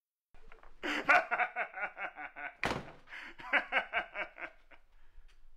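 Hearty laughter, a rapid ha-ha-ha at about six beats a second, broken a little before halfway by one sharp thump. The laughter then picks up again and trails off.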